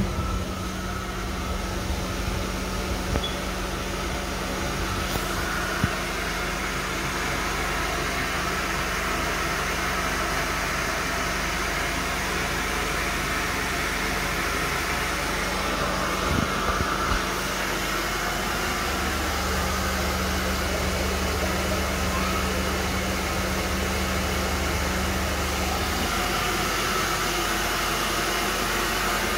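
Carpet extraction machine's vacuum running steadily while the cleaning wand is drawn over the carpet, sucking up water in a continuous rushing hiss over a low hum. The low hum gets deeper and stronger for several seconds past the middle.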